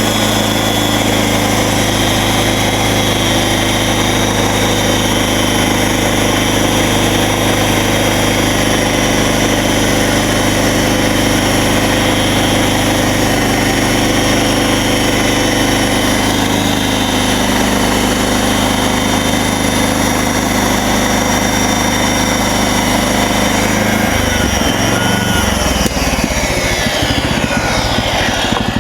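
Gasoline engine of a MechMaxx SM32 band sawmill running loud and steady at speed. Its note shifts about two-thirds of the way through, and the pitch falls away near the end.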